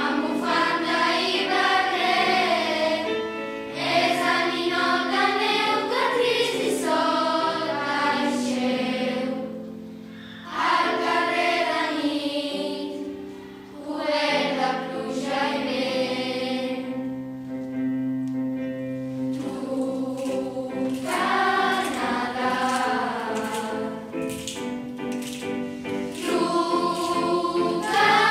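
Girls' choir singing a Christmas carol in phrases, with short breaks about ten and fourteen seconds in, over held low notes of an accompaniment.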